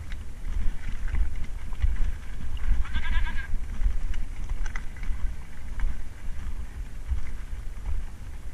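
Mountain bike rolling over loose shale and rock: a dense rumble and rattle with scattered clicks, and wind buffeting the camera microphone. About three seconds in, a brief wavering high-pitched squeal.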